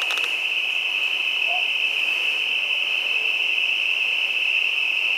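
Crickets trilling in a steady, high-pitched night chorus without a break. A couple of faint short chirps sound underneath it.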